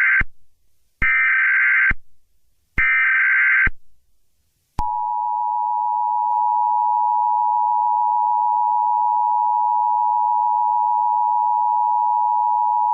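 Emergency Alert System header: three short, harsh electronic data bursts about a second apart, the first already under way. They are followed by the steady two-tone EAS attention signal, held for about eight seconds.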